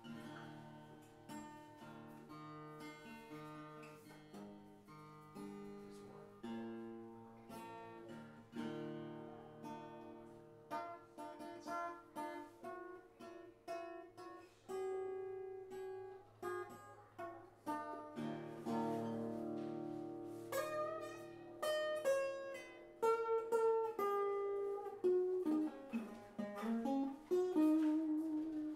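Improvised solo acoustic guitar on a koa-wood instrument, picking single notes and chords. The playing starts sparse and quiet, then grows busier and louder about two-thirds of the way in.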